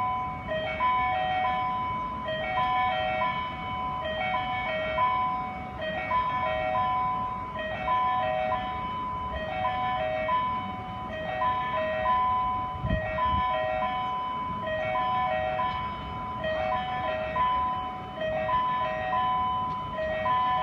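Electronic railway warning chime repeating a short pattern of three tones over and over, sounding for a train approaching the station. A brief low thump about 13 seconds in.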